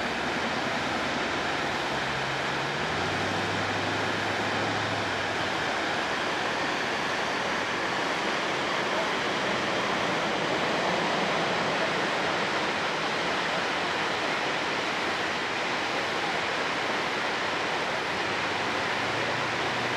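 Steady rush of water pouring over a spillway weir.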